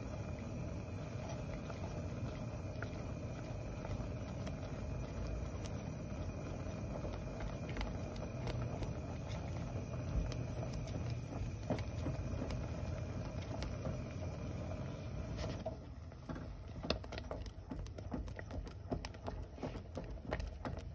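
Silicone spatula stirring a thickening cornstarch-and-milk cream in a saucepan on a gas stove, over a steady low hiss. About three-quarters of the way through the hiss drops away and a quicker run of small clicks and soft pops takes over as the cream turns thick.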